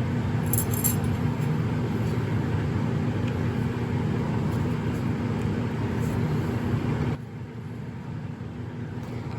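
Steady mechanical hum with a low droning tone from a running machine, which cuts off suddenly about seven seconds in.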